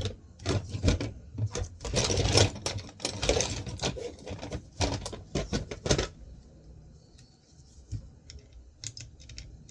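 Hand tools working on a hard drive's metal casing: a quick, irregular run of clicks and knocks, which thins out about six seconds in to a few faint ticks.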